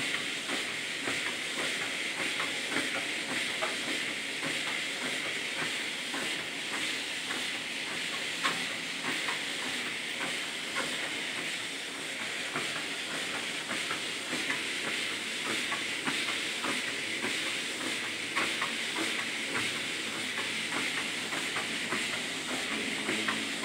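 Electric treadmill running steadily with an even hiss from its moving belt, and bare feet tapping on the belt in an uneven rhythm, several steps a second.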